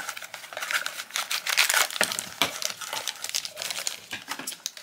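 Crinkling and rustling of a small cardboard blind box and the crinkly black wrapper inside as they are pulled open by hand, a dense run of irregular crackles.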